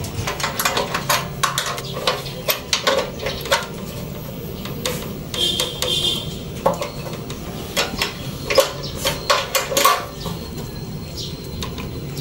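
Irregular metal clinks and clicks of a wrench working the bolts on a small gasoline water-pump engine, with tools and metal parts knocking together.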